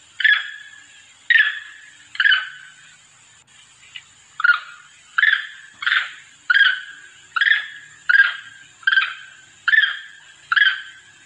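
Long-tailed macaque giving a series of short, sharp calls, about a dozen, each sharp at the start and then tailing off. After a pause about three seconds in, the calls settle into a steady run of roughly one every three-quarters of a second. This is a monkey's call to others of its troop, used as a lure.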